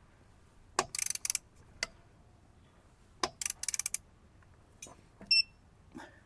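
A ratchet wrench clicking in two quick short runs as wheel nuts are tightened, with a brief electronic beep near the end from the digital torque wrench.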